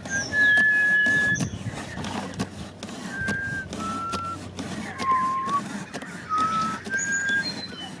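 A utility knife cutting into a cardboard box with a low, rough scraping and faint clicks. Over it come clear whistled notes, one after another, each held at a steady pitch for about half a second to a second and each at a different pitch, with a few short high chirps in between.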